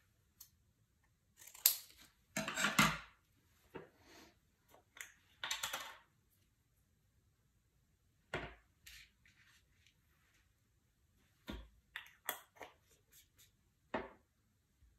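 Scattered short rustling and scraping noises from painting materials being handled over paper, the loudest a couple of seconds in, with quiet gaps between them.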